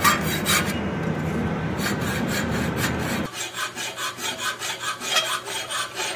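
Hand hacksaw cutting a slot about halfway into a small forged steel blank clamped in a vise, in quick, rhythmic back-and-forth strokes.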